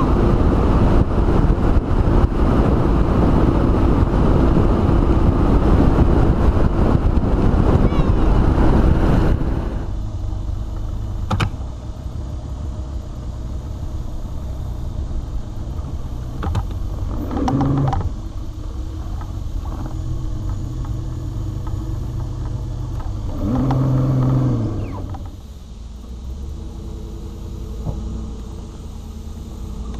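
A boat under way on the water: loud, steady motor and wind noise that cuts off about nine seconds in. It gives way to a lower, steady vehicle engine hum from the pickup truck towing the boat on its trailer, with the engine swelling twice as it pulls.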